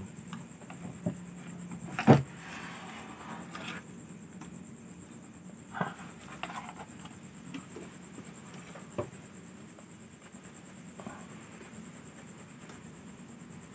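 Handling noise from working inside a CRT television's chassis: a sharp knock about two seconds in, a short rustle after it, and lighter knocks near six and nine seconds. A steady high-pitched whine and a low hum run underneath.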